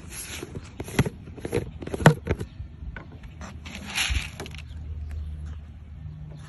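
Handling noises: a few sharp clicks and knocks in the first two seconds, then a short rustle about four seconds in, over a low rumble of wind.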